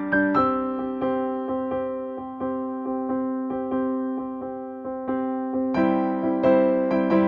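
Background music: electric piano playing a gentle, steady pattern of struck notes, growing fuller near the end.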